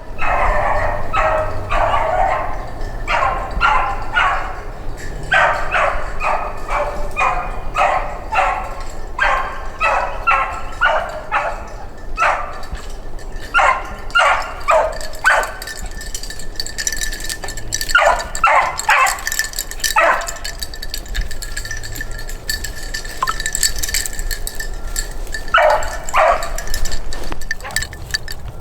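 A beagle baying over and over while running a rabbit track, its calls coming in quick runs with a few pauses between them.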